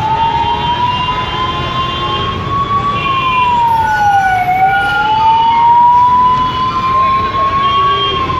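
A siren wailing, its pitch climbing slowly and falling back faster, about one cycle every four and a half seconds, over steady street and crowd noise.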